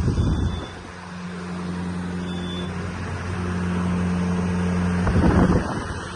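Heavy machine's diesel engine running steadily on a low, even note, with a louder rough burst at the start and again about five seconds in.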